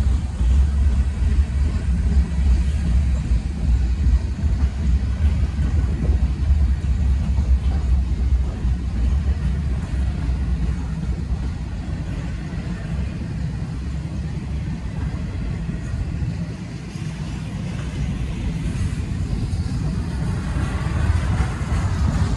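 Double-stack intermodal freight train's well cars rolling past at speed: a steady low rumble of steel wheels on rail, easing off somewhat about halfway through and building again near the end.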